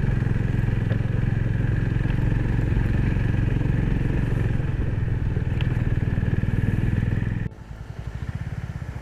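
Motorcycle engine running steadily while ridden, with a faint steady whine above the engine note. About seven and a half seconds in, the sound drops suddenly to a quieter, pulsing engine note.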